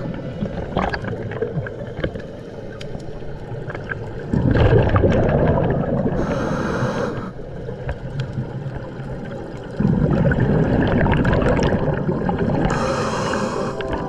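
A diver's scuba regulator breathing underwater: twice a long bubbling rumble of exhaled air, each followed by a shorter hiss of inhaling through the regulator.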